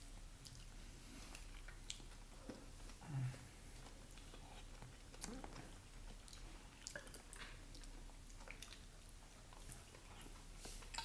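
Faint chewing and small clicks of people eating a meal, with a brief low hum of a voice about three seconds in.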